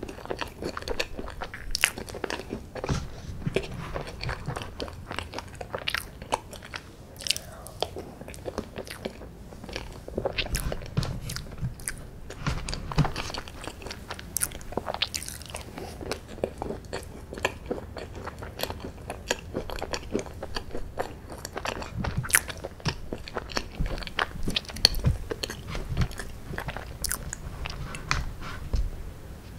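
Close-miked eating sounds of a person eating chocolate ice cream from a spoon: a steady run of small wet clicks, chewing and lip smacks.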